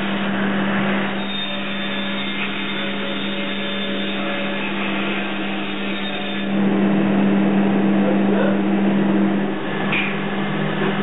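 Glove-port abrasive blast cabinet working on a bronze casting: a steady hiss from the blast nozzle over a steady hum from the cabinet's machinery. The hiss grows louder about six and a half seconds in and eases back a few seconds later.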